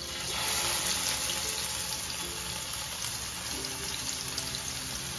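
Masala-coated trevally fish pieces sizzling in hot oil in a frying pan. The sizzle swells about half a second in as a piece is laid into the oil, then carries on steadily.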